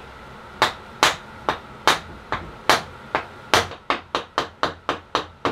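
Wooden mallet striking a guitar truss rod down into the routed channel of a wooden neck: a series of sharp knocks, about fifteen, coming faster toward the end. The rod is overly tight for a channel of the wrong size, so it is being forced in like a wedge.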